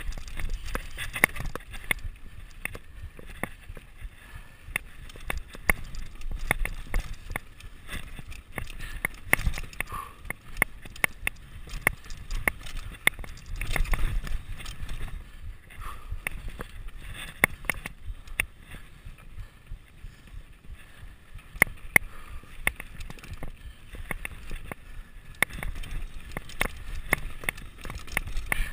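Mountain bike riding fast down a rocky dirt singletrack: tyres rolling over dirt and stones with a low rumble, and the bike's chain and parts rattling and clicking irregularly the whole way.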